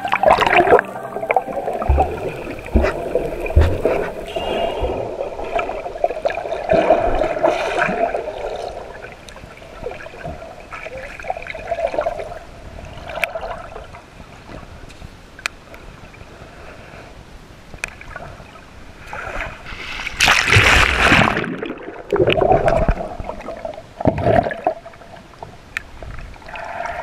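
Water heard through a submerged camera during a free dive: muffled, uneven gurgling and sloshing, with a louder rush of water about twenty seconds in.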